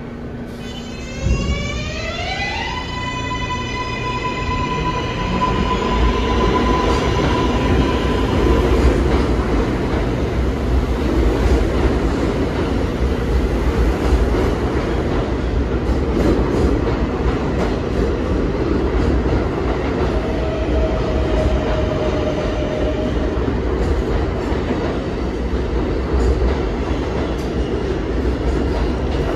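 Subway train pulling out: a knock about a second in, then the motors' electric whine rising in pitch and levelling off as the train accelerates, followed by steady wheel and rail rumble with some clatter.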